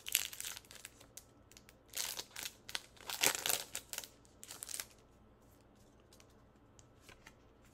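Foil wrapper of a Pokémon booster pack crinkling as it is handled and opened, in several short bursts over the first five seconds, then only faint room noise.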